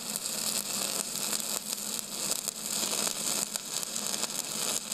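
Steady crackling hiss, dense with small crackles, over a faint low hum.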